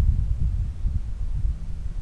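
Wind buffeting a small camera's microphone: a low, irregular rumble that eases off slightly toward the end.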